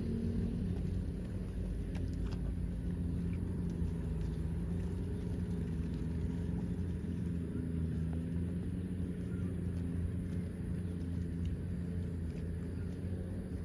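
A motor engine running steadily with a low, even drone.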